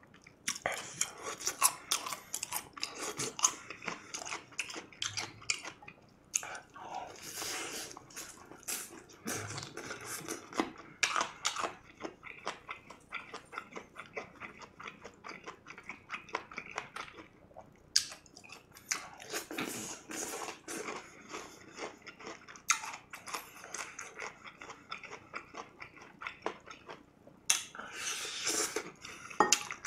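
Close-miked chewing and biting of crispy fried chicken in spicy sauce, with irregular crunches all through. Near the end comes a denser run of crunching as a drumstick goes into the mouth.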